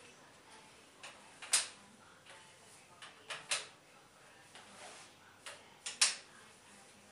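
Parts of a pop-up display frame being snapped together: a handful of sharp hard clicks in ones and close pairs, the loudest about a second and a half in, in the middle and near the end.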